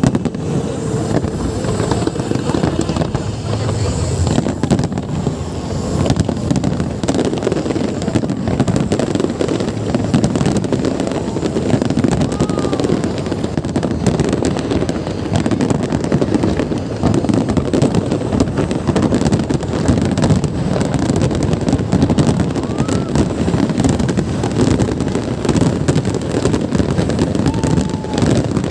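Fireworks display bursting in a dense, continuous stream of bangs and crackles.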